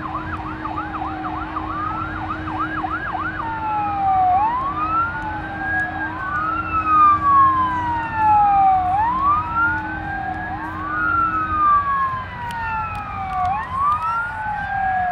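Airport fire truck sirens sounding: a fast yelp for the first three seconds or so, then slow wails rising and falling, two sirens out of step with each other. A steady low hum underneath stops about twelve seconds in.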